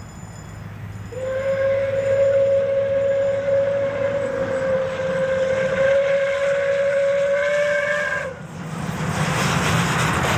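Steam locomotive whistle blowing one long steady note, held about seven seconds and then cut off. After it comes the loud rushing chuff and steam of the locomotive working past.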